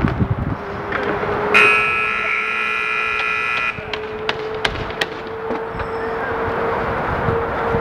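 Rink buzzer sounding once for about two seconds, a harsh steady electronic buzz that starts and stops abruptly, over the clatter of a roller hockey game with a few sharp knocks of sticks and puck.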